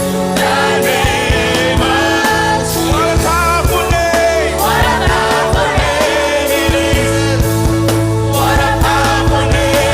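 Gospel worship song, a singer's melody over a band with held keyboard notes, bass and drums.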